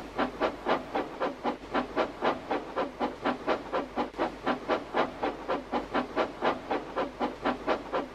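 Steam locomotive chuffing at a steady pace, about four chuffs a second, as it pulls away.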